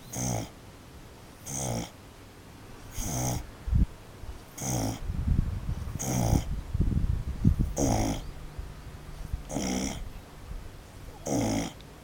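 A sleeping pet snoring loudly: about eight regular snores, one every second and a half or so, with a low rumble between them around the middle.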